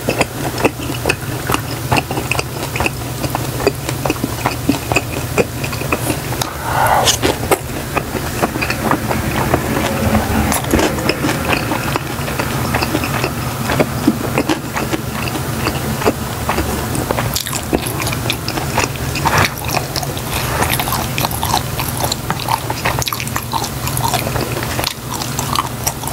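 A person chewing food close to the microphone, with many small irregular wet clicks and crunches, starting on a fried dumpling. A low steady hum runs underneath.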